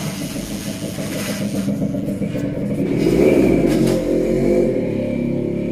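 A motor vehicle engine running close by, growing louder with its pitch bending about three seconds in, then settling back to a steadier run.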